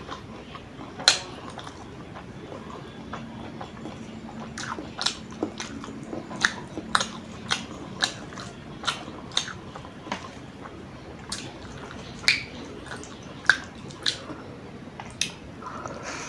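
Close-miked mouth sounds of a person chewing instant noodles: wet clicks and smacks, coming about every half second after the first few seconds.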